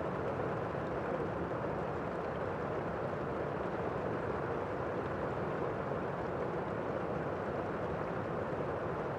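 Steady rain falling: an even, deep rush with no separate drops or thunder standing out, unchanging throughout.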